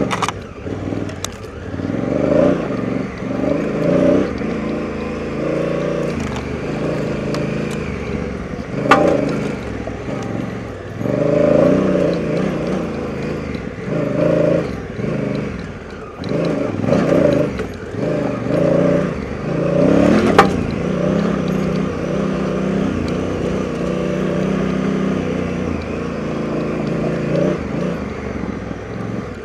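Honda Africa Twin's parallel-twin engine and exhaust on a slow off-road trail ride, the revs rising and falling again and again with the throttle. Two sharp knocks come through, about nine seconds in and again about twenty seconds in.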